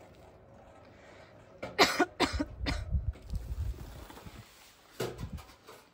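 A person coughing: three or four short coughs in quick succession about two seconds in, followed by a low rumble for a second or so, and one more cough near the end.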